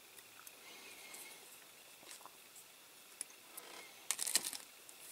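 Masking tape being peeled off a painted diecast car body with metal tweezers: faint scattered crinkles and ticks, with a short cluster of louder scratchy clicks about four seconds in.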